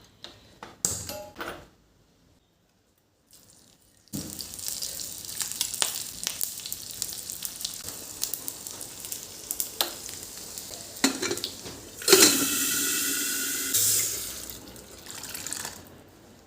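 Water running from a kitchen tap, with small clinks of utensils. The water starts abruptly about four seconds in, after a few clicks and a short quiet spell, and runs louder for about two seconds near the end.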